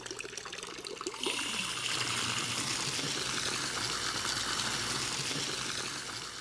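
A thin stream of water from a metal wall spout splashing steadily into a marble fountain basin. It gets louder about a second in and fades near the end.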